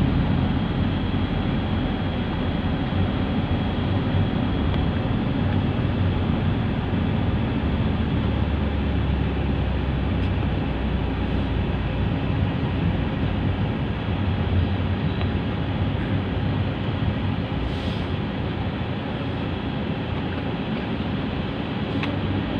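Steady engine and road noise of a moving vehicle, a continuous low rumble with no pauses.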